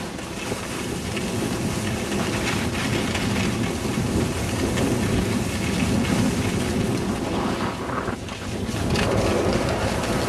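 Wind buffeting the camera microphone on an open ski slope: a steady, deep rush of noise that dips briefly about eight seconds in.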